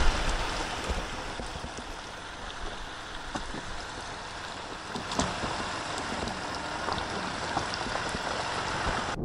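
A Jeep Grand Cherokee crawling through a muddy puddle: water sloshing and washing around the tyres over the low sound of the vehicle, with small scattered clicks.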